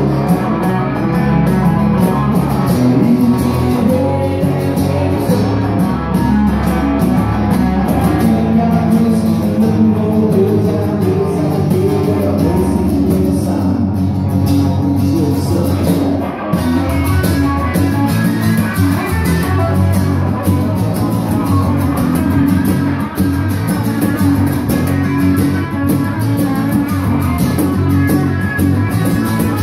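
Live southern rock band: a strummed acoustic guitar, an electric bass and a cajon, with a man singing.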